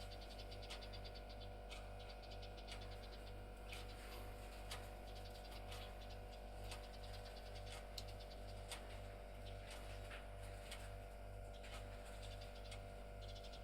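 House sparrow pecking at window glass: irregular light taps, some in quick runs, over a steady low hum.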